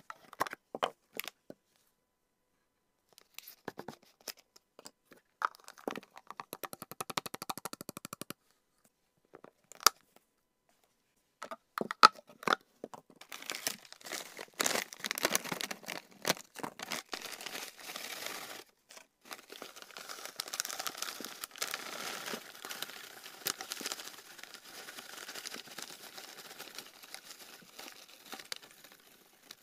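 Sharp plastic clicks from the latching lid of a clear storage canister, and a brief rapid rasp a few seconds in. From about halfway, a paper-and-plastic pet-treat bag crinkles and dried celery leaves rustle and crunch as they pour into the plastic canister.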